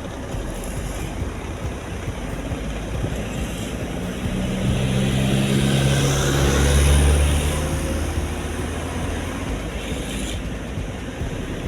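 Road and traffic noise from driving, with a deep engine hum that swells from about four seconds in, peaks near seven seconds and fades.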